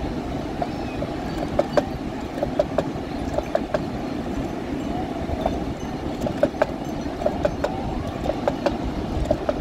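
Steady rushing of a stove burner under an aluminium pot of tea on the boil, with frequent small pops and plops as tea is poured through a tin-can strainer back into the pot.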